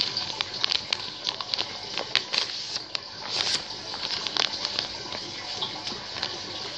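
Paper being folded and creased by hand, rustling and crinkling with many irregular little crackles.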